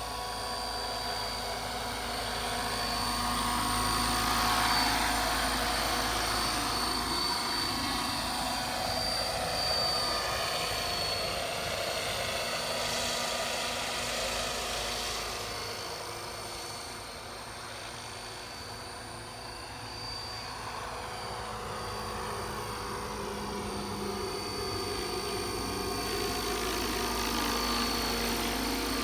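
Radio-controlled scale model helicopter (Bo 105 body on an Align 600-size airframe) flying: its rotors and drive run with a steady high whine over a wash of rotor noise. It grows louder about four seconds in, fades around the middle, and comes closer again near the end.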